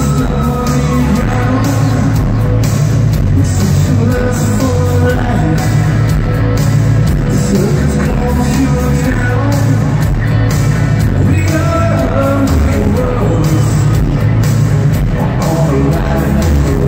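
Loud live rock band playing with a singer's voice over it, heard through a phone's microphone: heavy bass and a steady drum beat filling the low end.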